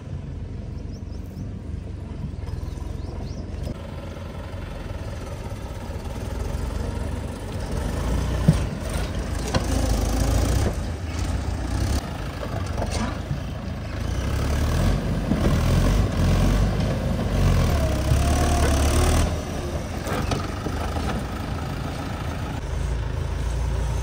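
Mahindra tractor diesel engine running, growing louder and rising and falling as it works under load, with a single sharp knock about eight seconds in.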